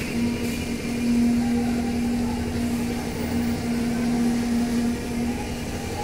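Construction machinery running steadily: a loud, even hum with a held drone that dips briefly a few times.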